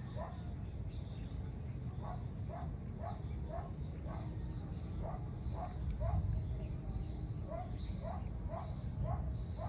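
A distant animal calling in short notes that drop in pitch, about two a second, in bouts of four or five with short pauses between. A steady low rumble and a faint, steady, high insect drone run underneath.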